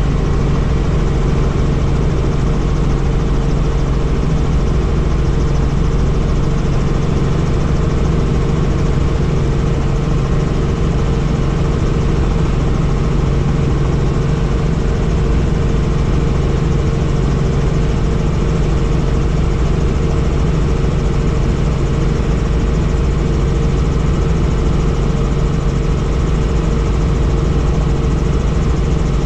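Helicopter in flight: a steady, loud drone of engine and rotors with a constant low hum and a higher steady tone.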